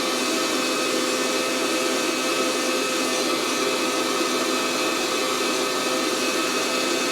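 Fresh Roast SR800 hot-air coffee roaster running: its fan blowing heated air up through the beans in a steady rush, with a constant motor hum. Early in the roast, with the beans still heating well short of first crack.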